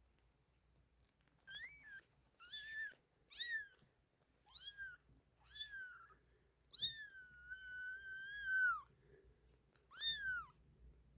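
Young kittens mewing: about seven high, thin calls that rise and fall in pitch, one of them drawn out for about two seconds before it drops away.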